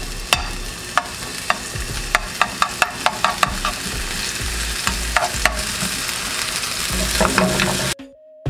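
Minced garlic sizzling in hot oil in a nonstick frying pan, a steady hiss with scattered sharp ticks and taps. The sound cuts off abruptly near the end.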